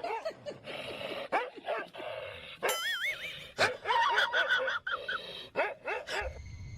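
A dog whining and yipping in a string of short cries that rise and fall in pitch.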